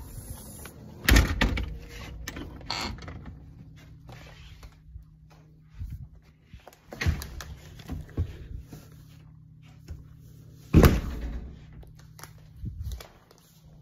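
A door being opened and shut, with a few sharp knocks and handling thumps and faint rustling in between; the loudest knock comes near the end, another about a second in.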